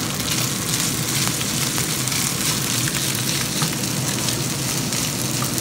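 Fried rice sizzling steadily in a hot pan as a wooden spatula stirs and turns it, with a few light spatula taps against the pan.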